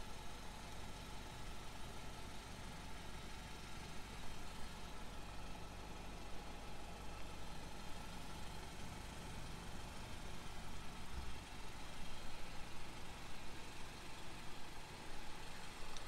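Steady low hum of a car engine idling, with faint even background noise and no sudden events.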